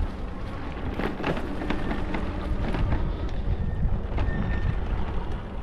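Wind buffeting the microphone over a low rumble, with scattered knocks and rattles.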